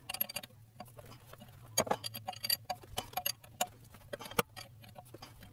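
Irregular light metallic clicks and taps from hand tools working a puller on a crank pulley, with one sharper knock toward the end.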